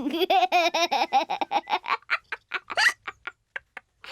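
Cartoon characters laughing in a quick run of pitched ha-ha pulses that slow down and grow fainter, trailing off to a few separate breaths before stopping near the end.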